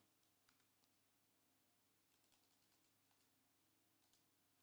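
Near silence: room tone with a few faint light ticks, most of them in a cluster around the middle.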